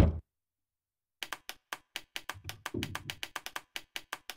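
A sharp knock at the very start, then, after a second of dead silence, a rapid run of dry wood-block-like ticks that quicken to about six or seven a second, a ticking waiting effect laid in during editing.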